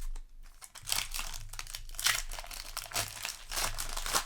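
Crinkling of a foil booster pack wrapper being handled and pulled open, a dense run of crackles from about a second in.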